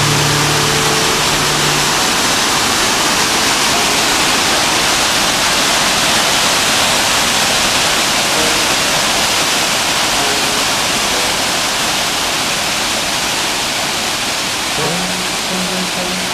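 Steady, unbroken rushing noise of a large waterfall. A low steady hum underneath stops about two seconds in, and a few faint pitched tones come in near the end.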